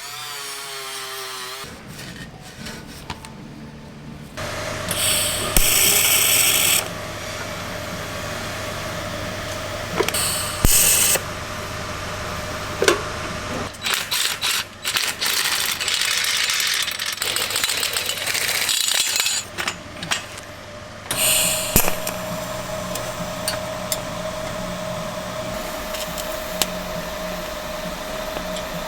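Power tool working on the motorcycle's exhaust mid-pipe and headers, cleaning the metal ahead of welding, running in several bursts of one to a few seconds over a steady machine hum.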